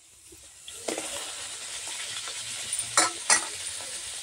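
Puri frying in hot oil in a steel kadhai: a steady sizzle sets in about a second in and runs on as the dough puffs. About three seconds in come two sharp clicks of the slotted steel spoon against the pan.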